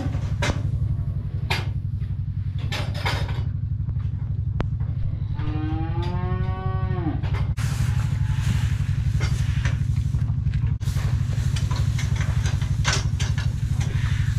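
Farm tractor engine running steadily under load, with rattling clicks, while a cow moos once, long, about five seconds in.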